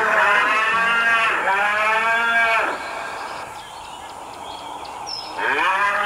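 Cattle mooing: two long moos back to back, a pause of about three seconds, then another long moo starting near the end.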